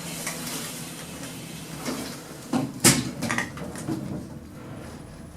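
Lift's automatic sliding doors closing, finishing with a run of clunks and clicks as they meet and lock, the loudest about three seconds in.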